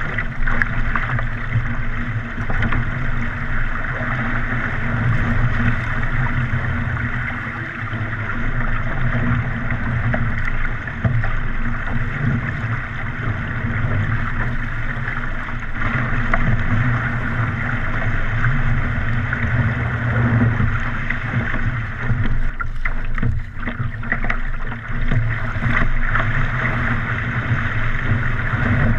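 Steady rush and splash of wind-driven chop along the hull of a surfski running downwind in strong wind, with wind buffeting the deck-mounted camera's microphone as a low rumble.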